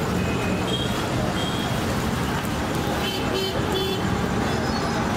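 Steady street traffic noise with several short vehicle horn toots, the clearest coming about three to four seconds in.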